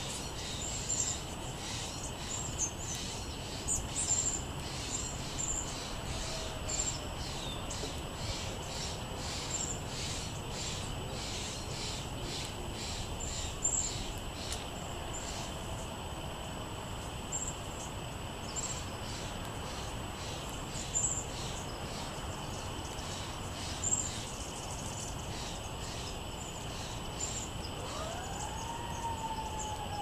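Small songbirds giving short, high chip notes, about one or two a second at first and sparser later, over a steady background hiss. Near the end a siren rises in pitch and then slowly falls.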